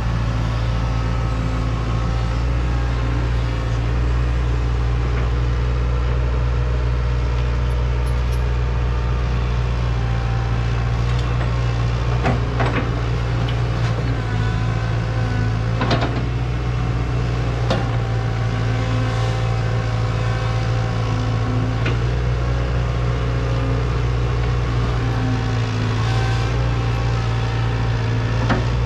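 Excavator's diesel engine running steadily under work, with a few sharp metallic knocks spread through.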